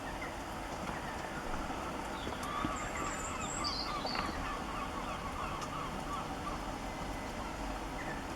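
Birds calling in the rain: a quick run of short, chattering calls for several seconds, with a few higher chirps, over a steady hiss of rain.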